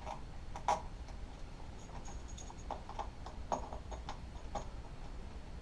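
Scattered light clicks and taps of hands handling the plasma cutter's cables and connectors, about half a dozen small knocks spread unevenly.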